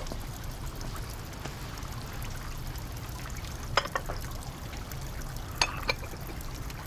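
Water trickling steadily in the background, with a few light clicks in two pairs, around four and around six seconds in.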